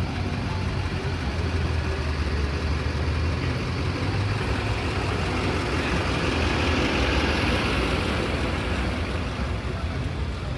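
A motor vehicle engine running at low revs with a steady low rumble, over a noisy outdoor background that swells for a few seconds around the middle.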